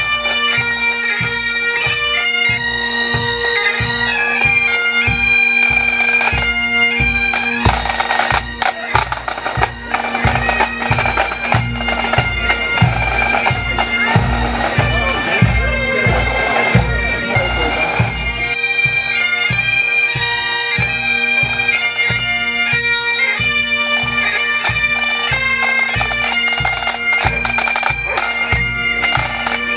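A marching pipe band of Highland bagpipes and drums playing a tune: the chanters carry the melody over the steady drones, with a regular drum beat underneath. The drones fade for several seconds in the middle while the melody and drums go on.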